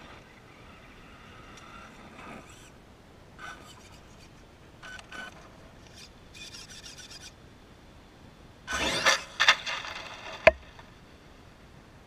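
Traxxas E-Revo RC monster truck with a Mamba Monster brushless motor working close by on a rough gravel road: faint short whines and tyre scratching, then a loud harsh rush of tyres scrabbling over the loose stone about nine seconds in as it pulls away, and a single sharp knock near ten and a half seconds.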